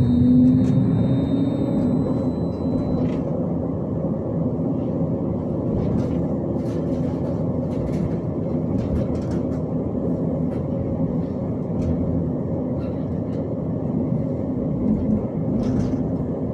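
Interior running noise of a Hyundai Rotem 142N low-floor tram in motion: a steady rumble of wheels on rail with a low hum from the traction equipment and many short clicks and rattles. A high whine sounds for the first two to three seconds and then fades out.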